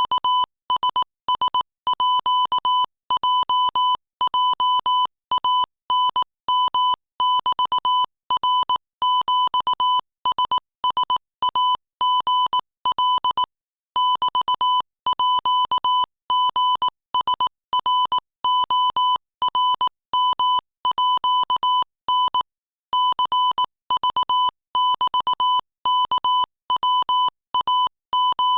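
Morse code sent as a single high-pitched beep keyed on and off in short and long marks, dots and dashes at 22 words per minute, with two slightly longer pauses between groups, about halfway through and again later.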